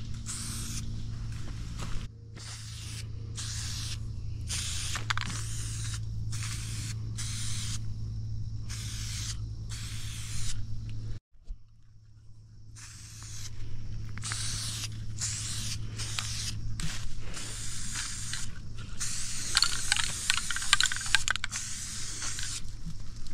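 Tractor engine running steadily with a low hum, under repeated irregular bursts of rustling and scraping from brush and dead wood being pushed through. The rustling grows denser near the end.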